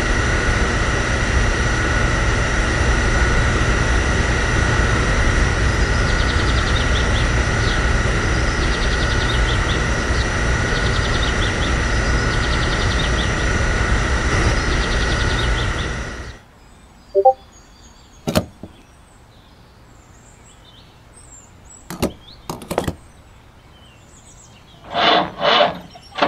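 Steady mechanical drone with a low rumble and a thin high whine, cutting off suddenly about sixteen seconds in. A few sharp clicks and knocks follow.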